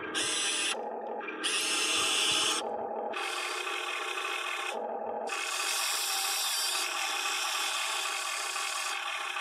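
Huina 580 RC excavator's electric motors and gearboxes whining, the pitch and strength changing every second or two as different functions start and stop while the ripper works the dirt.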